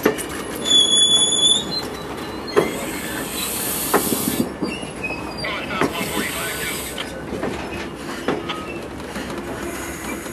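Amtrak stainless-steel passenger cars rolling slowly over yard track and switches: steel wheels squeal high-pitched from about half a second in to nearly two seconds, and the wheels give a few sharp clunks over rail joints, over a steady rolling rumble.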